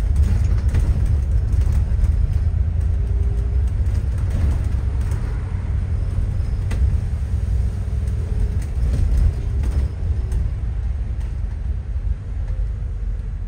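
Steady low rumble of a bus engine and road noise heard from inside the moving bus, with a few faint knocks. It eases off somewhat near the end.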